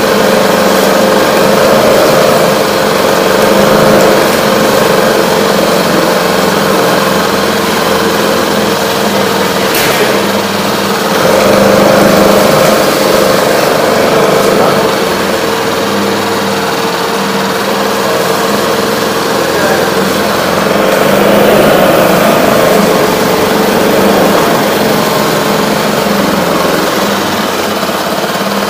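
Hidea HDF6HS four-stroke 6 hp outboard motor running steadily with its fuel supply cut off, burning off the petrol left in the carburettor before storage.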